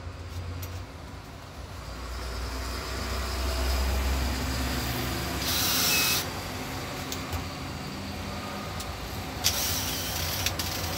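Cordless drill/driver running in two short bursts, about halfway through and near the end, driving a screw into the rubber bird sculpture, with a few sharp clicks of handling between, over a low rumble.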